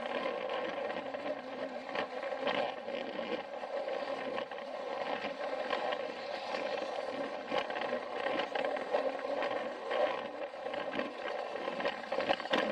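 Battery-powered Plarail toy train running on plastic track: a steady whir of its small motor and gearbox, with irregular light clicks and clatter from the wheels on the track.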